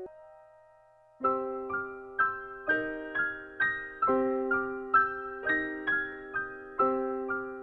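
Soft piano music. A held note fades out, and about a second in a steady run of single notes begins, about two a second, each ringing and dying away.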